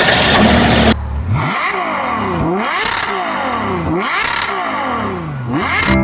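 An engine revving up and down about four times, each rev a rising then falling pitch, after a second of loud rushing noise at the start.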